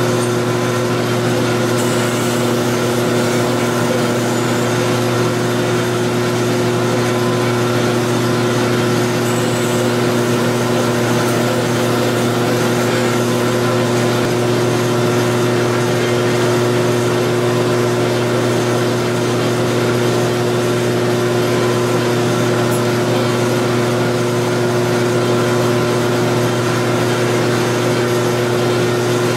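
Belt grinder running steadily with its motor humming, as the steel adze's bevel is held against the abrasive belt on the contact wheel and ground.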